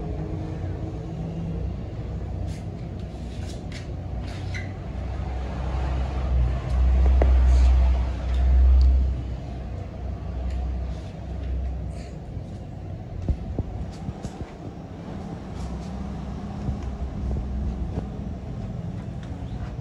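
A low rumble that swells loudest about six to nine seconds in, under scattered short scrapes and taps from hand work on a fibreglass helmet shell: filler being spread and rubbed down with sandpaper.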